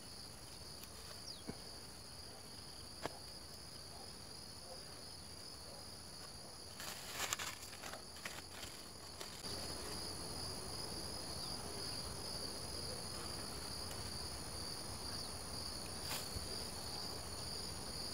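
Steady high-pitched insect chirring in the grass, one even unbroken buzz with a fainter, higher tone above it. From about seven to nine seconds in, a burst of crackly clicks and rustling from hands handling plastic wrapping.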